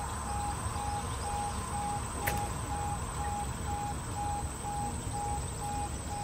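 Level crossing audible warning alarm sounding as the barriers lower: one steady tone switching on and off in an even pulse. A single sharp click comes about two seconds in.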